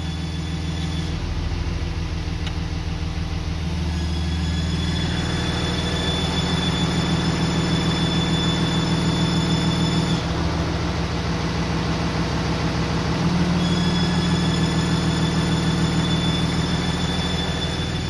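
6.7L Cummins inline-six turbodiesel idling steadily with its exhaust brake switched on, with a thin high squeal from the exhaust brake over the engine note. The squeal drops out for a few seconds past the middle and comes back. The brake is working despite the noise.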